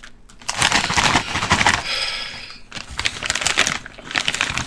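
Crinkly crackling of a foil potato-chip bag being handled, followed by potato chips crunching as they are chewed.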